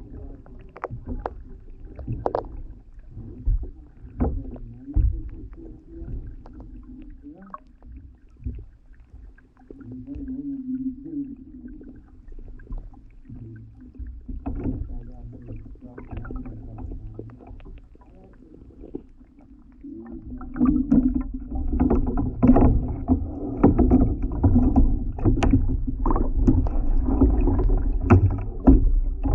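Kayak being paddled: paddle strokes and water noise with scattered sharp knocks, getting louder and busier about twenty seconds in.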